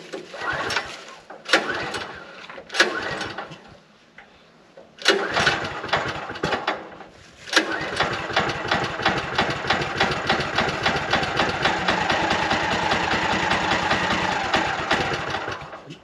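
The Woodland Mills HM126 sawmill's gasoline engine being cranked for its very first start: a few short attempts that sputter and die, then about halfway through it catches and runs steadily until it stops near the end.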